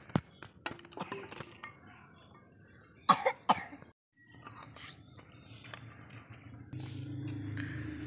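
Metal clinks and scrapes of a spoon against steel bowls as cooked vegetables are tipped out and served. About three seconds in, a person coughs twice. After a break, a low steady hum.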